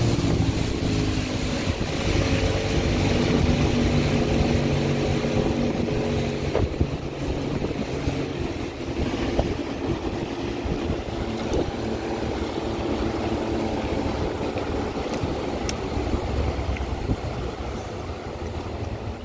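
A motorboat's engine runs under way, its hum fading out over the first several seconds. A steady rush of wind and water noise is left.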